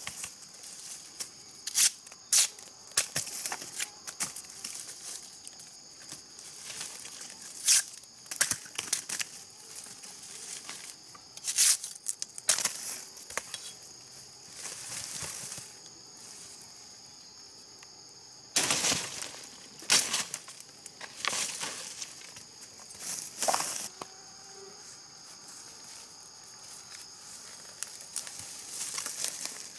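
Irregular rustling, crackling and tearing of leaves and plant stalks being handled or pushed through, in uneven clusters. Under it, insects shrill steadily on two high notes.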